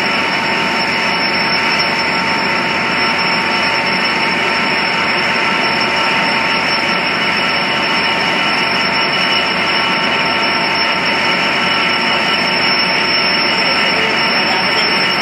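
Amtrak EMD F59PHI diesel locomotive running while standing, a steady loud engine drone with several steady high whining tones over it.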